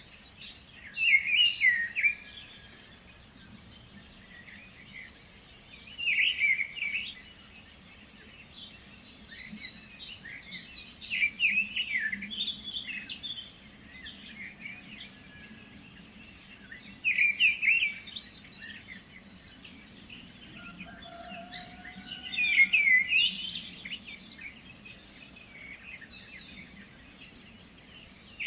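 Several songbirds singing and chirping, a dawn chorus of repeated high phrases in bursts every few seconds, over a faint low background hum.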